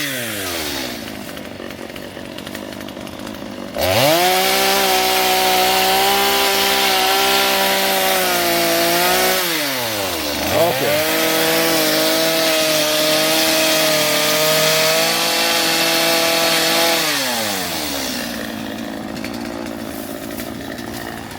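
Gas chainsaw cutting brush and small trees. It idles, then runs at full throttle for about five seconds, drops back for a moment, runs at full throttle again for about six seconds, and winds down to idle near the end.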